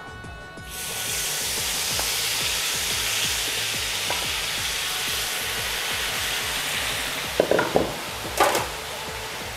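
Hot cooking oil sizzling loudly and steadily, starting suddenly about a second in as food goes into the oil for deep-frying. A few sharp utensil knocks come near the end.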